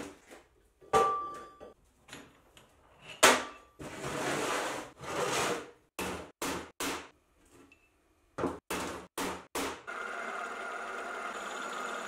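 Steel parts being handled on a metal workbench: sharp metal clanks, the first with a brief ring, stretches of scraping, and runs of short knocks. About ten seconds in, a drill press starts running steadily.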